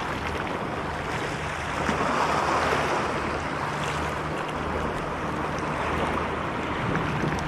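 Sea surf washing over shoreline rocks, a steady rushing noise, with a faint steady low hum underneath.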